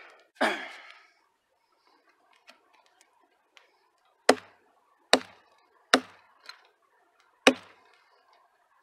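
Small hatchet chopping through a squirrel carcass into a log: four sharp chops a little under a second apart, with a fainter knock between the third and fourth.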